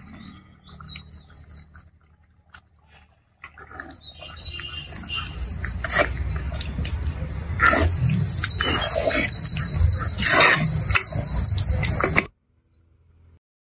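Birds chirping in rapid, repeated high calls, building from about four seconds in, over low rumbling and a few knocks. It all cuts off suddenly near the end.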